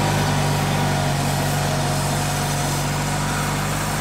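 Craftsman snowblower's small gasoline engine running steadily with an even hum.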